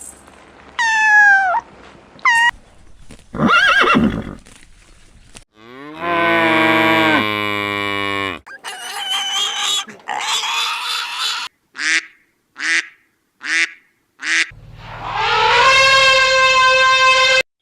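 A quick succession of different animal calls cut one after another: a high call falling in pitch about a second in, a long drawn-out low call in the middle, several short sharp calls, and a long steady call near the end that cuts off suddenly.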